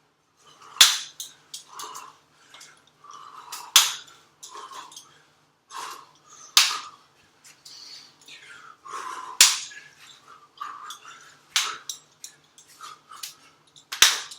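Rapid, irregular sharp knocks of training strikes hitting a hanging wooden jump-rope handle, with about half a dozen loud cracks and many lighter taps between them.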